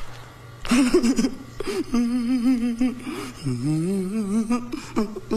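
A man's wordless vocal sounds: a short breathy noise about a second in, then two long drawn-out sounds with a wobbling pitch, over a steady low hum.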